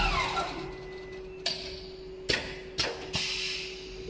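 Richpeace CNC sewing machine winding down as it stops stitching, its running pitch falling away. A steady hum stays, and four sharp mechanical clicks follow from about a second and a half in.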